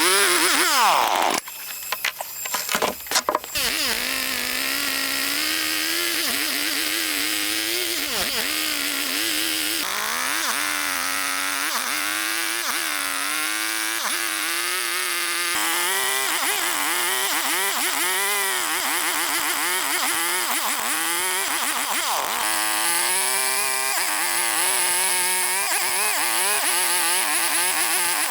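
Small chainsaw engine running, its pitch rising and falling over and over as the throttle changes. About a second and a half in it drops out for a couple of seconds with a few clicks, then picks up again.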